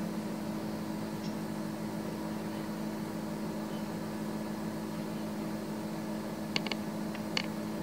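Steady low mechanical hum, like a fan or motor running, with a few brief high-pitched ticks near the end.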